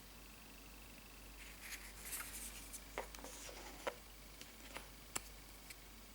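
Light rustling, sliding and a few sharp little clicks of paper photo cards being handled and shuffled by hand.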